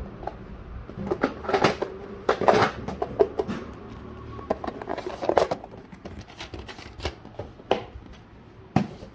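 Clear plastic snap-lid tackle boxes handled on a wooden table: a run of sharp plastic clicks and knocks as the boxes are moved and opened. The clicks come thickest in the first few seconds, then thin out to a few single knocks.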